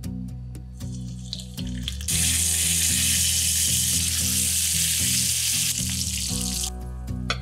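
Spanish mackerel fillets frying in hot olive oil in a frying pan: a loud, even sizzle that starts abruptly about two seconds in, eases a little, and stops shortly before the end.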